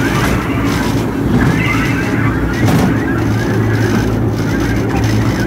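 Small children's ride train running along its track, its motor giving a steady low hum over a continuous rumble.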